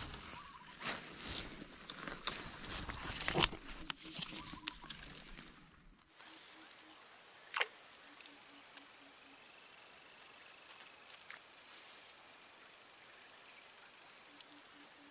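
Handling noise, with a few knocks and rustles, as a live cricket is put on the hook. About six seconds in, a steady high-pitched insect chorus takes over and runs on unchanged, with one small plop a moment later as the baited hook and float land in the water.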